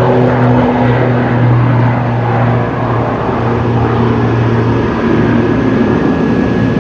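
Cessna 208B Grand Caravan EX's single Pratt & Whitney Canada PT6 turboprop at takeoff power as the plane lifts off and climbs away. It is a loud, steady propeller drone with a thin, steady high whine above it.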